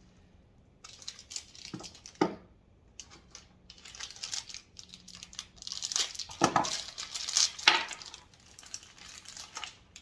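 Loose metal screws clinking and rattling as they are handled and picked out for assembly, in irregular clusters with a few sharper clinks.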